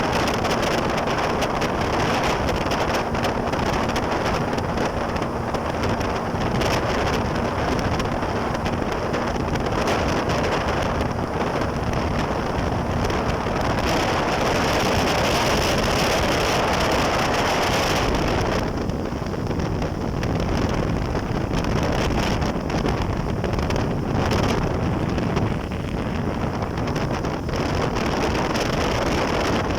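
Heavy wind buffeting the microphone on a moving jet ski, with the watercraft's engine and rushing water underneath as a steady noise.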